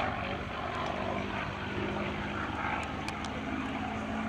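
P-51C Mustang's Packard Merlin V-12 engine and propeller running steadily in flight.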